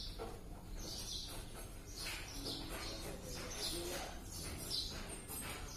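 Birds chirping in short repeated calls, over the low steady rumble of a container truck's diesel engine.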